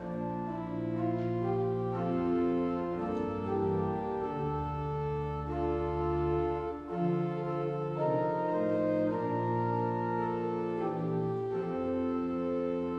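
Organ playing slow, sustained chords over a moving bass line, with deep bass notes held for a few seconds at a time: a prelude before the worship service begins.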